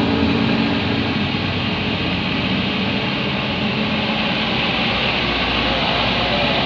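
Steady road-traffic noise: vehicle engines running and tyre hiss from passing traffic, with no horn call standing out.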